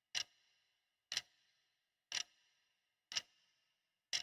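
A clock ticking at an even pace, one sharp tick about every second, each with a short ringing tail.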